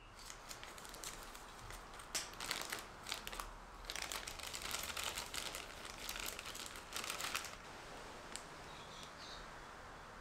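Clear plastic zip-lock bag crinkling as it is handled, in irregular bursts that stop about seven and a half seconds in.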